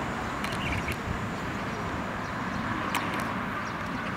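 Steady outdoor background noise, a hiss with a low rumble, typical of distant road traffic and wind, with a few short faint chirps or clicks about half a second in and again around three seconds in.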